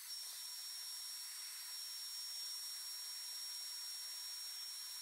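Handheld heat gun blowing steadily: a rushing hiss with a thin, steady high whine.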